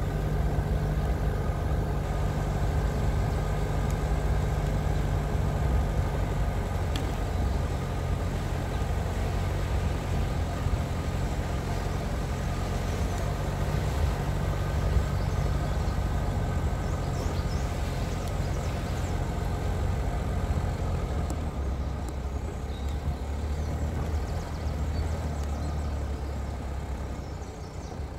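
Vehicle engine running steadily while driving, with tyre and road noise; it quietens near the end.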